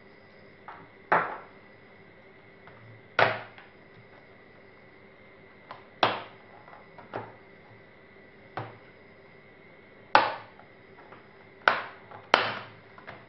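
Sharp knocks and clicks of a Sony Vaio laptop's case and parts being handled during disassembly: about eight separate strikes at uneven intervals, each dying away quickly, over a faint steady whine.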